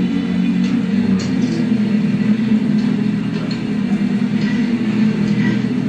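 Steady low drone of a boat's engine idling, heard on a film soundtrack played back to a room.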